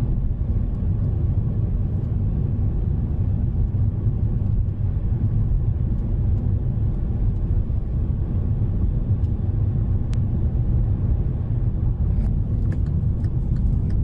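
Steady low rumble of a moving car's engine and tyres, heard from inside the cabin, with a few faint clicks near the end.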